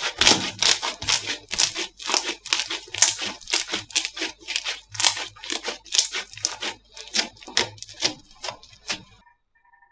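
Slime being pressed and squeezed by hand, a quick run of crackling, popping clicks that stops about nine seconds in.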